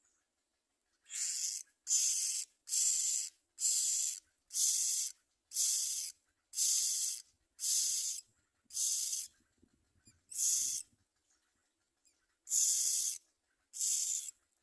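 Common myna nestlings giving harsh, hissing begging calls, about twelve raspy calls of half a second each at roughly one a second, with a short pause near the end.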